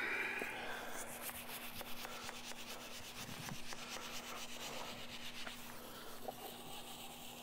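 A brush scrubbing a giant tortoise's shell in quick, repeated strokes, scraping loose the white, flaking fungal growth to debride shell fungus.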